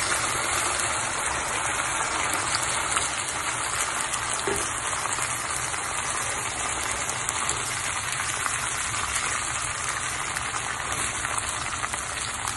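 Onions, garlic and capers sizzling in oil in a stainless steel frying pan as tomato sauce goes in: a steady crackling hiss.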